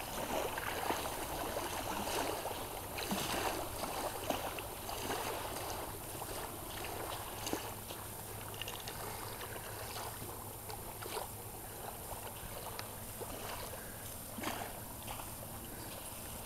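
Steady outdoor rumble of wind and water on the microphone, with scattered soft scuffs and taps from small dogs scrambling and the camera-holder moving over sand.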